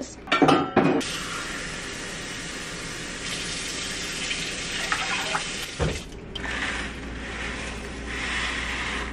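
Kitchen tap running into a saucepan, filling it with water to cook packet Spanish rice; the flow is a steady hiss. About six seconds in there is a knock, then a second steady hiss as the dry rice-and-pasta mix is poured into the pot.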